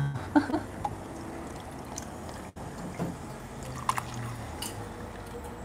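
Cockscomb flower tea poured from a small glass bottle into a plastic cup of ice, a faint trickle of liquid with a few light clicks.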